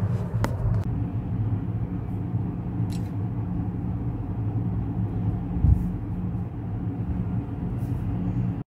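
Steady low rumbling background noise, with a couple of faint clicks about half a second in and about three seconds in.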